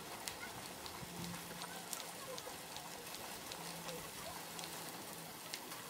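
Bicycle tyres rolling over a wet trail surface: a steady crackly hiss with scattered small clicks of grit.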